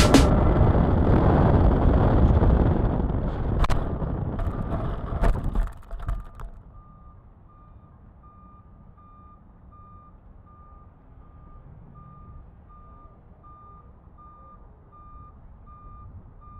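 Onboard sound of a Hobby Zone AeroScout S2 electric RC plane flying low: air rushing over the camera along with the motor and propeller, ending in a few knocks as it touches down about six seconds in. With the plane at rest, a faint high electronic beep then repeats about every three-quarters of a second.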